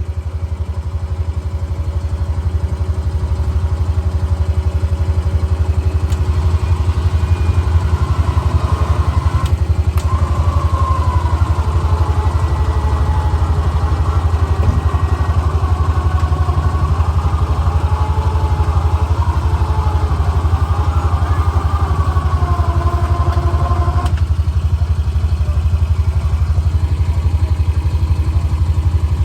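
Side-by-side engine idling steadily, while an electric Warn winch runs under load pulling a stranded UTV backwards through a snatch block: a wavering motor whine that starts about a quarter of the way in and cuts off sharply a little past the middle.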